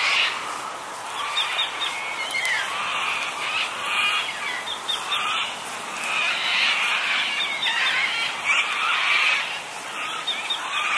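A chorus of wild birds calling at once, a dense chatter of many short calls that goes on without a break.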